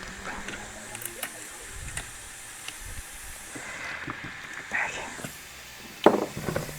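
Scattered small clicks and scrapes of a hand tool turning a screw and nut to fasten the foot-pedal bracket of a kayak, with a brief hiss of scraping about four seconds in and a louder knock about six seconds in.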